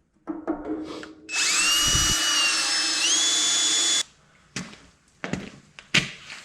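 Power drill running for about three seconds, its motor whine rising in pitch as it spins up, stepping higher again partway through, then stopping abruptly. A few sharp knocks follow.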